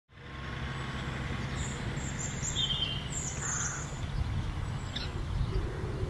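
Birds chirping a few times over a steady low rumble.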